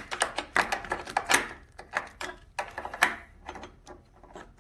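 Irregular clicking and knocking of hard plastic and metal parts being handled, as a new motorcycle ignition switch and its wiring plug are slid into place.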